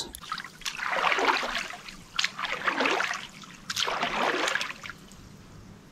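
Water swishing and splashing as a small inflatable boat is paddled by hand: three strokes, about a second and a half apart, then quieter water.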